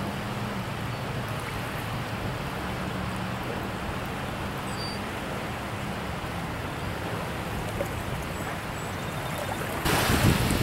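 Steady wash of small waves lapping on a sandy lake shore, with a faint low hum under it. About ten seconds in, wind starts buffeting the microphone and the surf gets louder.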